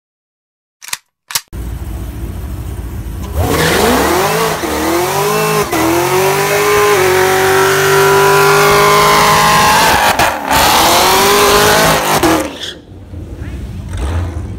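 Car engine revving hard during a burnout, with the rear tyres spinning. The revs climb over a couple of seconds, hold high with one brief dip, then drop off near the end as the car pulls away.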